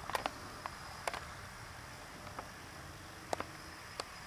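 A faint steady hiss with about nine short, sharp clicks and ticks at irregular moments.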